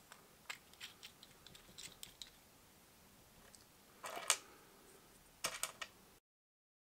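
Small steel washers, nuts and M5 bolts clicking and clinking as they are handled and fitted onto plastic test blocks: scattered light clicks, then two short rattles of loose hardware about four and five and a half seconds in. The sound cuts off to silence near the end.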